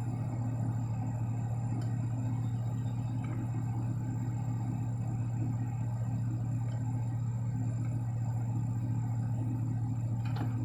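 1997 Toyota Camry idling with the air conditioning running, heard from inside the cabin as a steady low hum. A few faint clicks sound over it.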